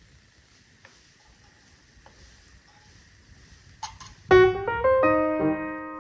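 Faint steady hiss with a few small clicks, then background piano music starts about four seconds in with a run of struck notes and chords.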